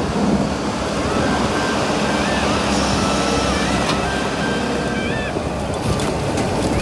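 A heavy machine's engine running steadily, under background music with held notes that step up and down in pitch.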